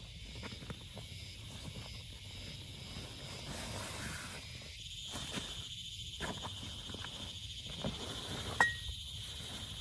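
Rustling and soft knocks of a backpack and camping gear being handled and set down on the forest floor, with a steady high insect drone behind. One sharp click with a brief ring comes near the end.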